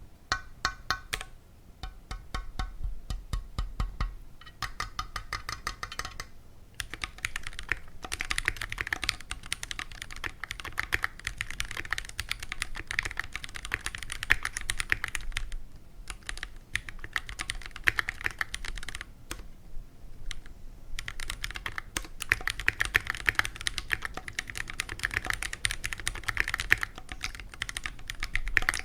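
Typing on a stock Keychron Q1 mechanical keyboard with Phantom Red linear switches: rapid runs of keystrokes clacking and bottoming out, in bursts broken by a few short pauses.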